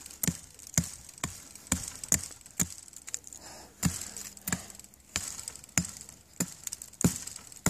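Stone hand axe chopping into a small tree trunk, striking about twice a second with a brief pause about three seconds in; each blow is a sharp knock of stone on bark and wood.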